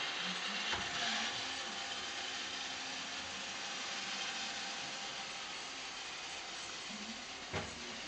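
iRobot Roomba 630 robot vacuum running on carpet: a steady whirring hiss of its suction fan and brushes that grows slightly fainter. Two short knocks, one under a second in and one near the end.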